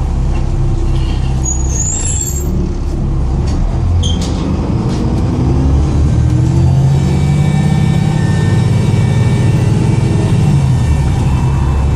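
Volvo B7TL bus's diesel engine running, with a few short high squeaks in the first few seconds, then revving up louder about six seconds in and holding a steady high whine over the engine note, the sound of the bad turbo leak that leaves it struggling to pull away from a standstill.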